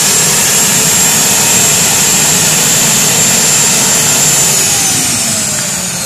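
Homemade turbojet engine running with a loud rush and a high, steady whine. About four and a half seconds in, the whine starts to fall in pitch and the level eases off as the engine spools down.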